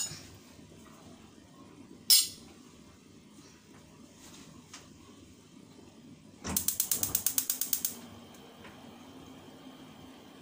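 Gas stove igniter clicking: one sharp click about two seconds in, then a rapid run of about a dozen clicks lasting a second and a half.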